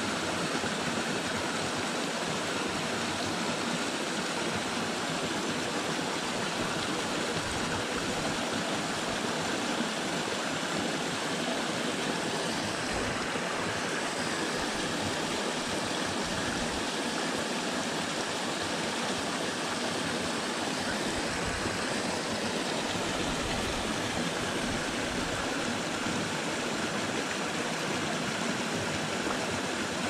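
A small waterfall splashing steadily down a stepped rock cascade into the pool below.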